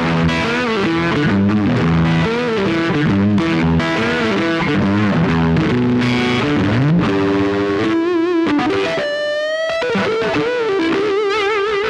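Electric guitar with a neck humbucker, played solo: a run of single-note lead lines, with notes held and wavering in a wide vibrato and a note bent upward about nine seconds in.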